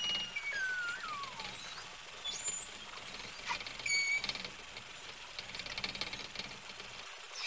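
Beluga whales calling underwater, picked up by a hydrophone. There are whistles that glide up and then down in pitch, a few sharp clicks, a short steady squeal about four seconds in, and stretches of rapid buzzing pulsed calls.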